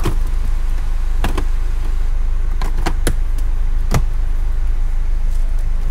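Plastic car glovebox being pushed and clicked into place in the dashboard: about five sharp plastic clicks and knocks spread over the first four seconds, over a steady low hum.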